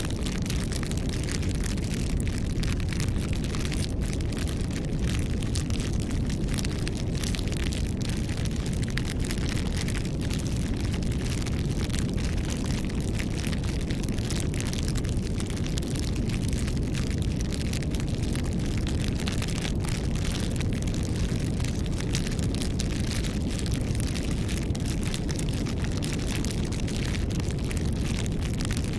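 Campfire burning, with frequent irregular sharp crackles and pops of burning wood over a steady low rumble.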